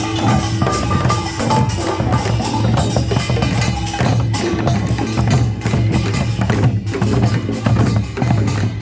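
Korean folk percussion ensemble (pungmul) playing: a dense, fast run of drum and gong strikes over a steady low drone.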